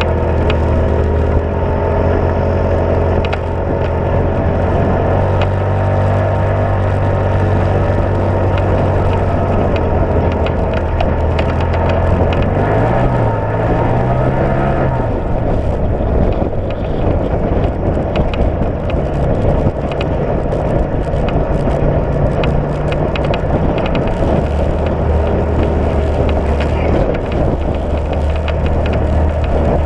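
Side-by-side UTV engine running steadily while driving on a dirt trail, with tyre and gravel noise. About halfway through the engine note briefly rises and falls, then runs rougher and less steady before settling back into a steady drone for the last few seconds.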